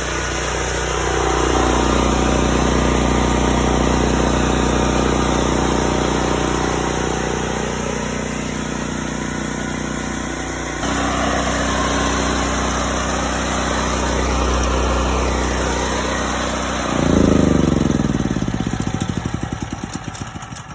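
Generac GP8000e portable generator's single-cylinder engine running steadily, with its note shifting a couple of times. About 17 seconds in it is shut off: the pitch falls as the engine spins down, and it dies away by the end.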